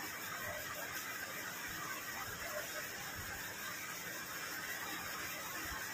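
Steady, even hiss of room background noise, with no distinct knocks or voices.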